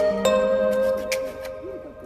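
Background music: a gentle melody of struck, ringing notes that dies away toward the end.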